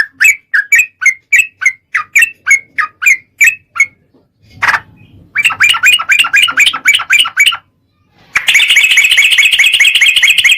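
Yellow-vented bulbul (trucukan) calling: a run of short chirps, about three a second, breaks off about four seconds in. After a single sharp click comes a quicker chattering phrase, then a fast, continuous trill near the end.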